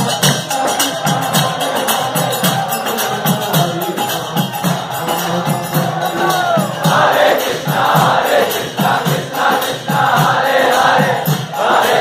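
Crowd singing a devotional chant together over a steady beat of percussion; the massed singing swells louder about seven seconds in.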